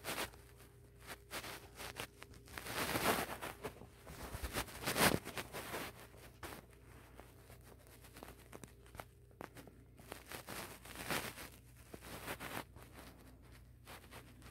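Soft, irregular rustling and scuffling of three-week-old kittens tussling on a blanket, with louder bursts about three and five seconds in and again around eleven seconds.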